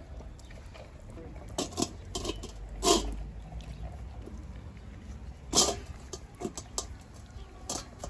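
Belgian Malinois puppies moving about on a tiled floor: scattered soft scuffs and taps, the two loudest about three and five and a half seconds in, over a low rumble.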